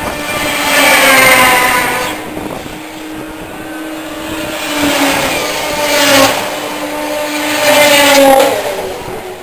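Racing snowmobiles' two-stroke engines screaming past one after another, three loud passes with each engine's pitch dropping as it goes by, over the steadier drone of sleds farther round the oval.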